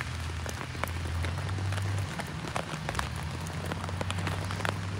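Rain falling, with individual drops striking close by as irregular sharp taps over a steady hiss, and a low steady hum underneath.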